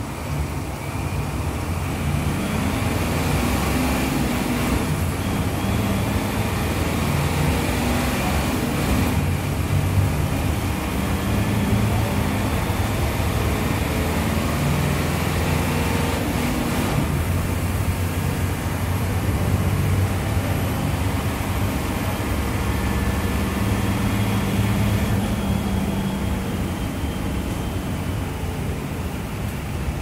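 Mercedes-Benz OF-1721 Euro II bus's six-cylinder turbodiesel engine revved up about a second in and held at high revs with the bus standing still, the engine note wavering up and down, before dropping back near the end. A faint high whine runs over it through most of the hold.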